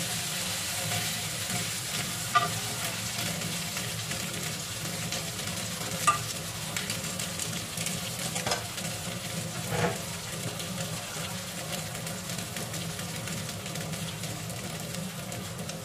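Eggplant slices topped with minced fish sizzling steadily in hot oil in a frying pan. A few sharp clicks come in the first ten seconds, from the metal tongs on the pan.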